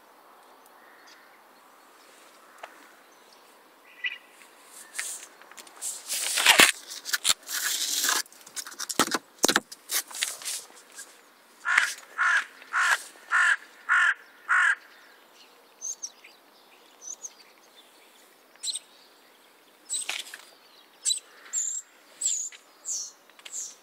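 A bird calling about six times in a row, roughly two calls a second. Before the calls come a few loud scuffing or crunching noises, and fainter high chirps of small birds follow.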